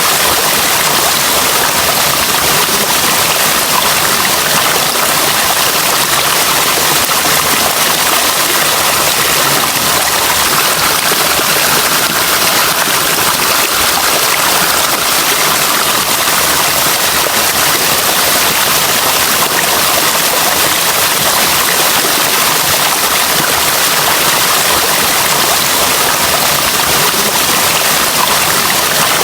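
Running water rushing steadily and loudly, an even hiss with little low rumble that never breaks or changes.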